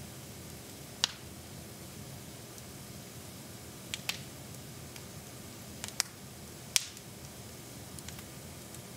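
Wood fire burning in a fireplace, popping and crackling: about half a dozen sharp pops spread out, the loudest about a second in and near seven seconds, over a steady soft hiss.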